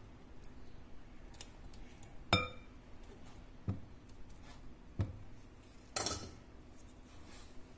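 Metal strainer and silicone spatula knocking against the rim of a glass bowl while custard is worked through the mesh: a few separate knocks and clinks, the first and loudest with a short clear ring, then a brief scrape about six seconds in.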